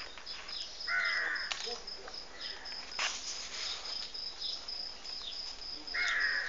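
Outdoor bird calls: two harsh, arching calls, about a second in and again near the end, over scattered short falling chirps of small birds and a steady high-pitched pulsing in the background.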